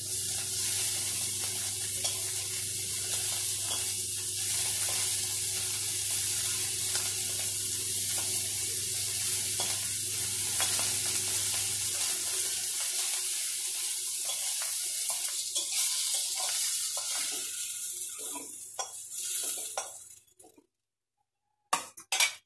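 Thin fish pieces shallow-frying in oil in an aluminium kadhai: a steady sizzle with the scrape of a spatula turning them. The sizzle fades out near the end, followed by a few sharp clicks.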